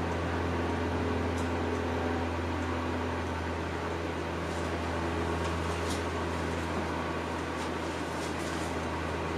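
A steady low hum, like a running appliance or fan, with a few faint light clicks scattered through it.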